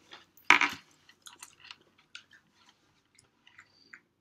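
Two people crunching and chewing Pretz baked pretzel sticks: one loud crunch about half a second in, then scattered quieter crunches.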